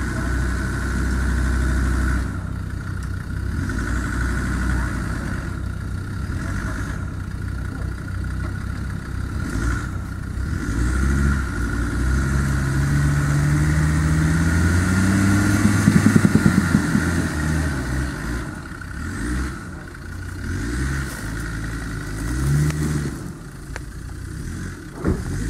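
Off-road 4x4's engine running and being revved: the revs climb steadily to a peak about two-thirds of the way in, with a brief rapid fluttering there, then drop back to uneven blips of throttle.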